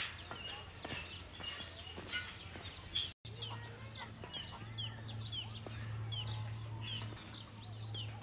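Faint outdoor ambience of many birds giving short, quick chirps and calls, with a low steady hum coming in after a sudden break about three seconds in.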